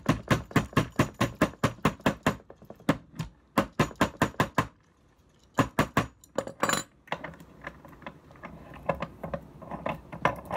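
Hammer striking thick wire clamped in a small bench vise, bending it to a right angle: quick runs of metal-on-metal blows, about five a second, broken by short pauses. The hammering stops about seven seconds in, leaving a few light clinks.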